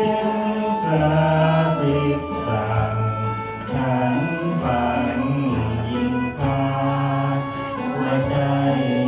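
A man singing a slow song in a low voice into a handheld microphone, amplified through a PA, with long held notes that step from one pitch to the next.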